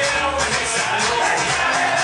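Upbeat dance music with a steady beat and singing.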